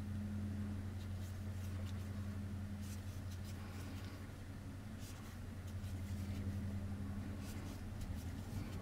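Steady low hum in the background, with faint, brief scratchy rustles every second or so from a crochet hook pulling cotton yarn through stitches.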